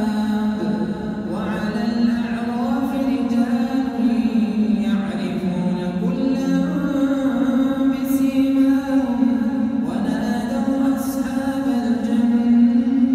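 An imam's melodic Quran recitation in the Isha prayer: one voice chanting in long, held, ornamented phrases.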